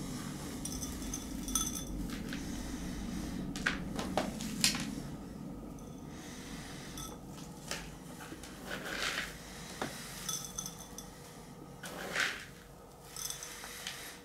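Small terracotta bonsai pot being handled, with scattered clinks and knocks of fired clay and a loose rattle of the lava rock layered inside it. The knocks come irregularly, a cluster of louder ones around four to five seconds in, with a few short ringing clinks.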